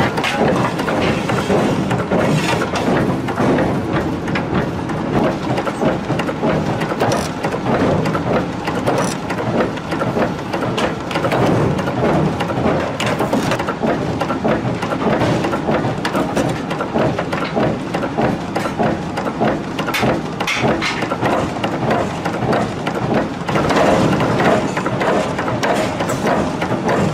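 Forge-shop din: forging machinery running, with a dense clatter of metal knocks and hammer blows.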